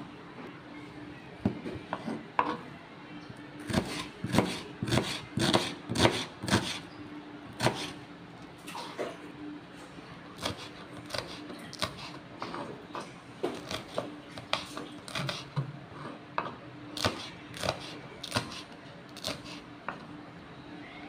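Kitchen knife slicing garlic, onion and chilies on a wooden cutting board: short sharp taps of the blade on the board, irregular, sometimes in quick runs of several a second. A faint steady hum sits underneath.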